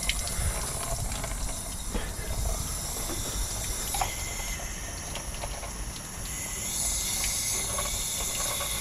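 Water from a garden hose flushing through an LT1 V8's engine block and pouring out of the open knock-sensor holes, splashing onto the frame: a steady hiss and splatter that grows a little louder and brighter about two-thirds of the way through. This is a cooling-system flush, with the water now running clean.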